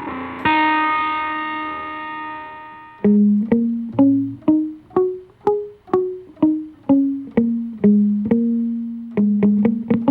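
Guitar played through a digital effects processor: a held note with a dark, distorted-sounding tone fades out over a few seconds, then a clean, brighter single-note line is picked, about two notes a second.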